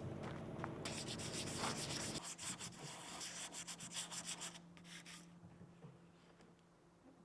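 Hand sanding with sandpaper, rapid back-and-forth rasping strokes that stop about five seconds in.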